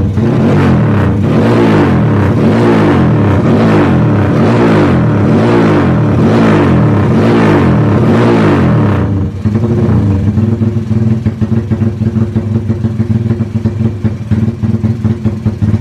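Honda Tiger's single-cylinder four-stroke engine breathing through an aftermarket Pekajaman exhaust, revved again and again while standing, each rev rising and falling. After about nine seconds it drops back to a pulsing idle.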